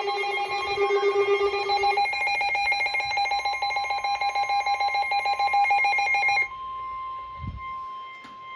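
Weather alert radio's electronic alarm beeping rapidly, switching to a different, faster-pulsing beep about two seconds in and cutting off after about six and a half seconds. A quieter steady single-pitched tone then sounds: the NOAA Weather Radio warning alarm tone that comes before a severe thunderstorm warning broadcast.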